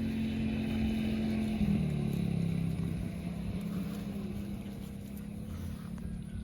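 A cow mooing: one long, low moo that drops in pitch about two seconds in and then fades away.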